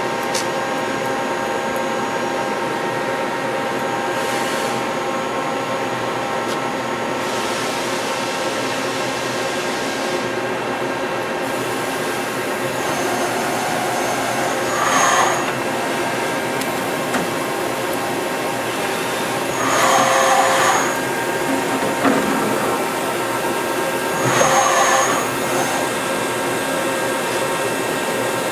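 Milltronics RH-25 CNC mill powered up and running: a steady machine hum with several steady whining tones. Three times in the second half it swells briefly louder with a high whirring whine.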